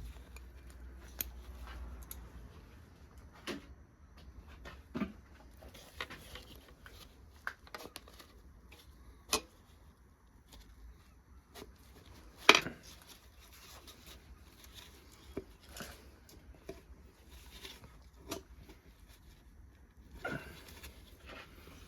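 Metal engine parts and hand tools being handled during a V8 engine strip-down: scattered clinks and knocks at irregular intervals, the sharpest knock about halfway through.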